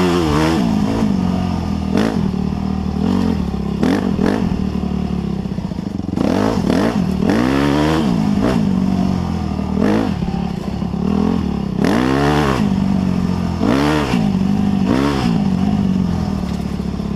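Yamaha YZ250F dirt bike's single-cylinder four-stroke engine revving up and down over and over as the throttle is opened and closed every second or two, heard from the rider's helmet, with the odd clatter of the bike over the trail.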